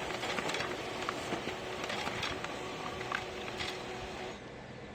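HP LaserJet Pro M401 laser printer running through a print job, a steady mechanical whir with a faint held hum that stops a little past four seconds in.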